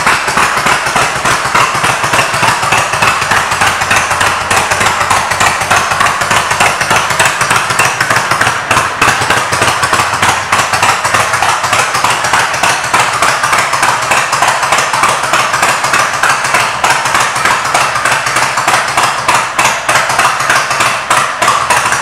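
Honda VTX 1300C V-twin engine running, a steady rapid pulsing exhaust beat.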